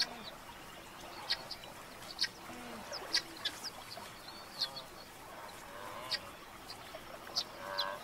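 Helmeted guineafowl calling: about a dozen short, sharp calls scattered irregularly, with a few softer chattering calls in between.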